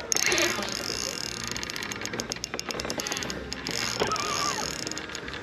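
Spinning reel being cranked, its gears giving off a rapid, even ticking that comes in two runs.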